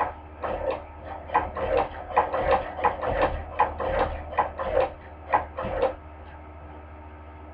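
Hand-crank cobbler sewing machine stitching, its mechanism clacking irregularly about two or three times a second as the crank is turned, and stopping about six seconds in.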